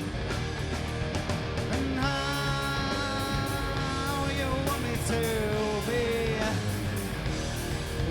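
Live four-piece rock band playing mid-song: electric guitars, bass and drums. From about two seconds in, a long lead note holds and then bends in pitch over the band.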